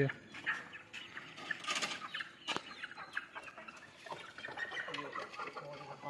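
Chickens clucking in short, scattered calls, with a single sharp click about two and a half seconds in.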